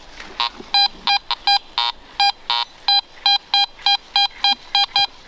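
Metal detector beeping on a buried metal target: short, evenly spaced buzzy electronic beeps, about three a second. The target turns out to be a small nail.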